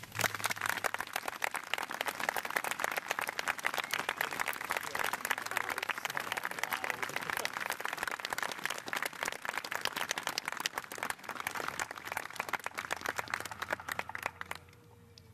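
Crowd applauding, a dense patter of many hands clapping that starts abruptly and stops about half a second before the end.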